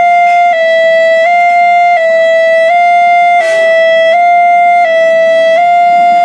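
Electronic railway level-crossing alarm sounding a loud two-note tone that alternates between a slightly higher and a slightly lower pitch about every 0.7 seconds: the rare crossing tone that railfans call 'alarm langka', warning of an approaching train. A short burst of noise cuts across it about halfway through.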